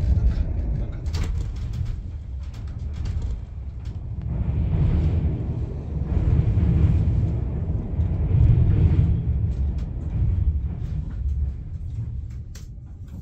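Running noise inside a Deutsche Bahn Intercity 2 double-deck coach in motion: a low rumble that swells and fades, with scattered clicks from the running gear.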